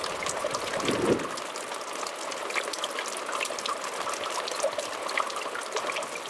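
Small stream of water trickling and dripping down a rock face: a steady trickle with many small drips and splashes.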